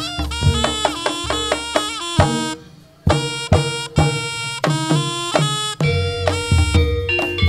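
Javanese reog kendang music: a reedy wind melody over kendang drum strokes, breaking off for a moment about two and a half seconds in, then picking up again.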